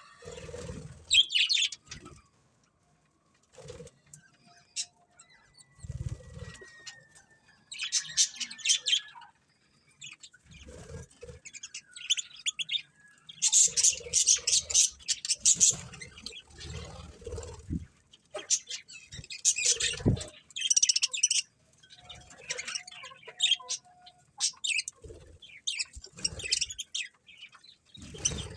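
Budgerigars chirping and chattering in irregular bursts of rapid high notes, with low thuds between and under some of the bursts.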